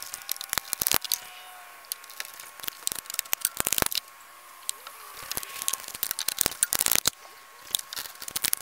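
Hands working with PVC pipe and fittings: irregular sharp clicks and knocks with short scraping, rasping bursts, two denser clusters of them about three and a half and six and a half seconds in.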